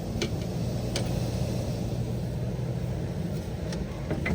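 Air handler blower motor running with a steady hum, with a few light clicks and knocks of its metal access plate being fitted back on.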